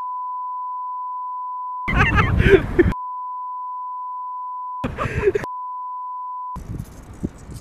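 A steady 1 kHz bleep tone, the kind dubbed over speech in place of a narrator, broken twice by short snatches of outdoor sound.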